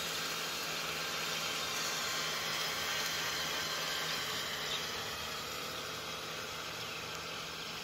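Kubota M6040SU tractor's diesel engine running steadily under load as its rear rotary tiller churns through flooded mud, with a steady hiss over a low hum. It grows a little fainter as the tractor moves away.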